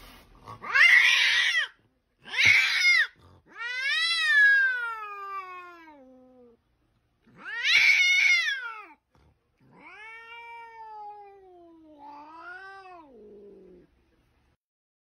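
Domestic cat yowling: six drawn-out calls, the first two short and rough, then long wails that slide down in pitch, the last two quieter.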